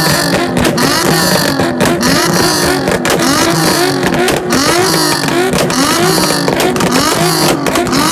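Two cars on a two-step launch limiter, engines revved up and down over and over against the limiter, with loud popping and cracking from the exhausts as they spit flames.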